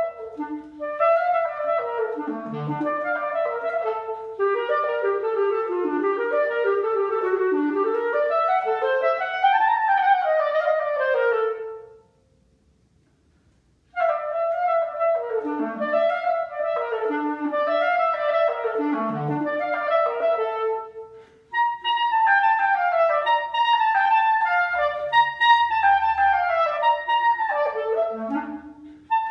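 Solo clarinet playing fast runs of short notes that sweep up and down through its range. It stops for a silent rest of about two seconds near the middle, then the runs start again.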